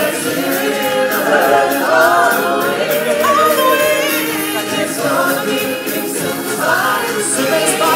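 Live stage-show music with a group of voices singing together, loud and unbroken.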